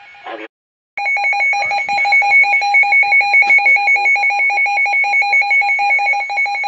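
Broadcast emergency alert attention tone: a loud tone at two steady pitches, pulsing rapidly. It starts about a second in, after the last word of the announcement and a brief gap.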